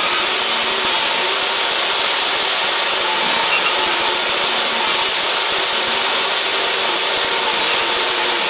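Portable jobsite table saw running steadily while ripping narrow 3/4-inch strips from scrap lumber and plywood: a steady motor whine under the noise of the blade cutting. It stops abruptly at the very end.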